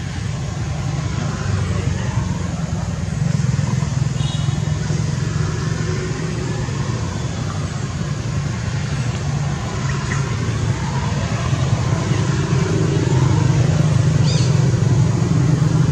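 Steady low engine rumble, growing a little louder toward the end, with a few faint high chirps about four seconds in and near the end.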